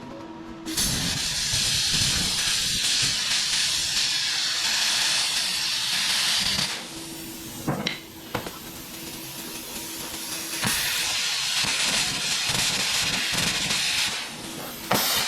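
Plasma cutter hissing as it cuts the hardened steel pin brackets off a digger bucket. It starts about a second in, stops briefly in the middle with a couple of sharp clicks, and starts again. A steady hum sounds under it in the pauses.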